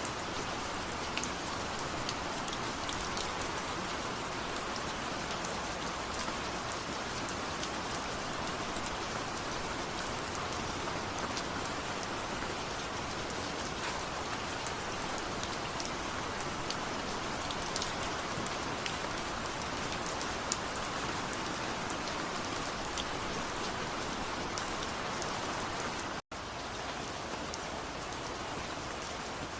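Steady rain falling, with single drops heard as sharp ticks above an even hiss. The sound drops out for an instant near the end.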